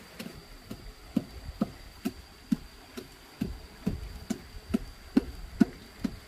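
Knife chopping on a wooden cutting board in an even rhythm, about two strokes a second, some strokes harder than others. A faint steady high whine runs underneath.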